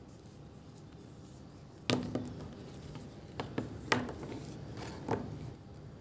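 Black metal automatic ratchet belt buckle clicking and clacking as it is handled with the leather strap: about six sharp clicks over three seconds starting about two seconds in, some with a brief metallic ring.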